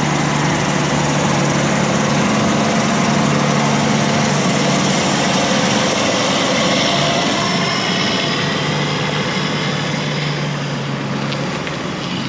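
Harvest machinery's large engine running steadily under load: a loud, even drone with a constant low hum, easing slightly near the end.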